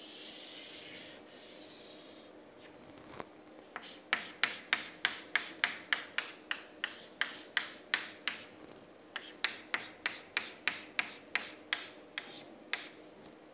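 Chalk on a blackboard: a long scraping stroke over the first couple of seconds, then from about four seconds in a quick run of short chalk strokes, about three a second, as hatching is drawn, with a brief pause past the middle.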